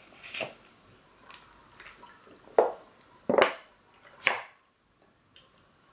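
Drinking from a plastic water bottle after unscrewing its cap, close to the microphone: three or four short, sharp sounds spread over a couple of seconds, a little under a second apart.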